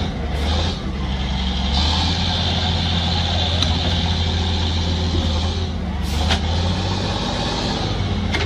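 Heavy diesel engine running steadily, with a few sharp knocks about half a second in and around six seconds in.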